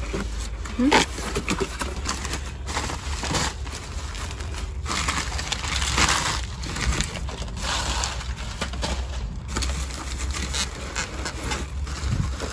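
Crumpled newspaper and bubble-wrap packing rustling and crinkling as it is pulled out of a cardboard box by hand, with many short crackles.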